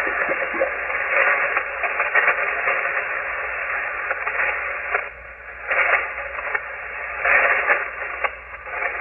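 Shortwave receiver on the 40-meter amateur band hissing with band noise while no station is transmitting, with louder surges of static about six and seven and a half seconds in.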